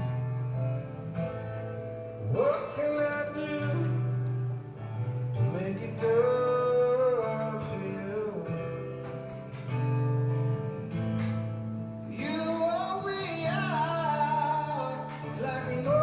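A song with guitar and a singing voice, played over Bluetooth through the speakers of a Zenith console record player, with steady bass notes beneath and sung lines coming in and out.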